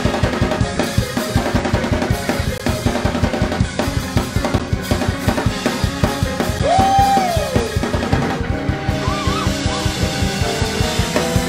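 Live gospel praise-break music: a drum kit played at a very fast, driving tempo with bass and sustained organ chords. About seven seconds in, a single high note rises and falls over the band, and the drumming stops at the very end.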